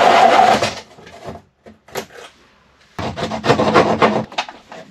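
Cordless drill with a hole saw cutting through a timber panel, its motor whining steadily, stopping under a second in. Scattered knocks follow, then a run of rasping scrapes and knocks about three seconds in.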